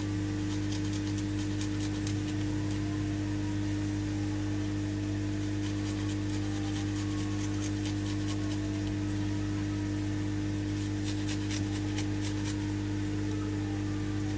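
Steady low hum with several fixed tones, from a fan or other mains-powered appliance. Over it come scattered faint crackles and clicks in clusters: vegetables and garlic frying in oil in the pan.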